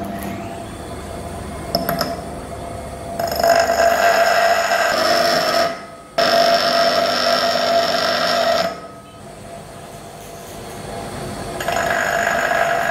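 Bench grinder running, with a small metal piece pressed against the spinning wheel in three spells of grinding, each a loud, high, ringing screech lasting two to three seconds. Between the spells only the grinder's motor is heard running.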